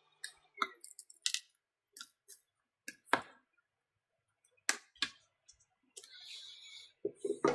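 Prying tool clicking and scraping against the Alcatel Pixi 3 tablet's glued screen as the digitizer is worked loose from its adhesive: scattered sharp clicks, a short scraping hiss about six seconds in, and a few duller knocks near the end.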